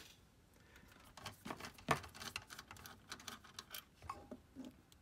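Faint, irregular metallic clicks and scrapes of a hand-turned flexible-shaft nut driver working out the adjusting screw on a slide projector's solenoid adjustment plate.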